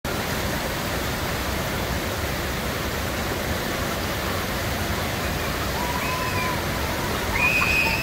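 Water rushing steadily over a drop and down the concrete channel of a river rapids ride. Near the end, a few long high yells from riders on a raft coming over the drop.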